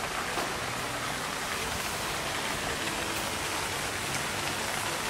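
Small garden waterfalls pouring steadily into a pond, an even rush of splashing water.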